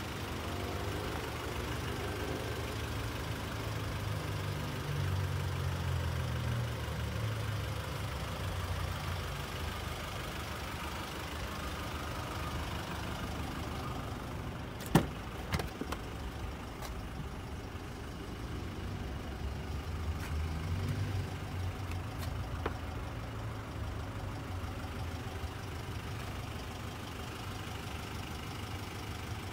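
Nissan Pathfinder engine idling with a steady low hum. About halfway through there is one sharp click, followed by a few lighter clicks, as the driver's door is opened.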